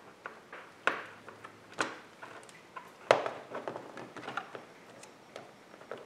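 Irregular metallic clicks and taps from a hex screwdriver working the fittings on the convertible-top hydraulic lines, with a sharper knock about three seconds in.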